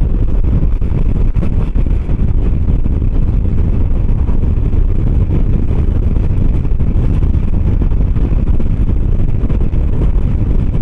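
Steady low wind rumble on the microphone, with engine and road noise from a 125 cc motor scooter riding at speed.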